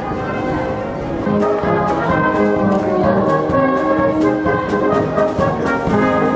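Brass band playing, with steady held chords.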